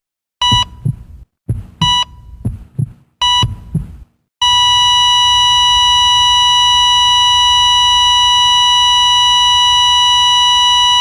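Heart-monitor sound effect: three short electronic beeps about a second and a half apart over low heartbeat thuds, then a long unbroken flatline tone from under halfway in, the sign of the heart stopping.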